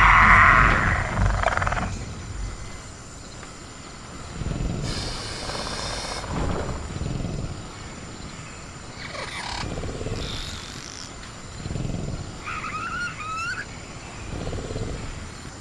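Sound-designed velociraptor growls and a roar, the loud call fading out in the first two seconds, followed by quieter low growls and scattered animal calls in jungle ambience, including a wavering call a little after twelve seconds.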